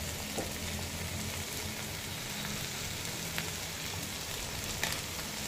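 Blended spinach paste frying in a nonstick pan with a steady sizzle, with a few faint taps of a wooden spatula.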